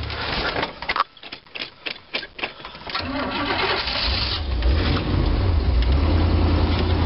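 Oldsmobile 403 V8 stumbling in a string of uneven pulses, then catching about three seconds in and settling into a steady, deep idle through an unfinished dual exhaust. The owner suspects the stumbling comes from a weak fuel pump.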